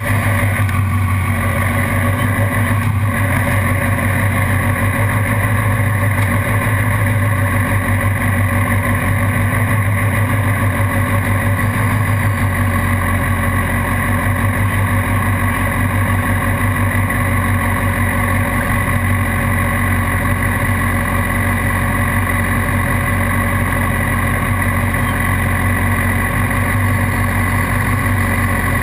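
Motorcycle engine idling steadily, loud and close to the microphone.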